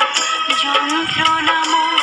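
Music: a wavering melody line over a steady percussive beat.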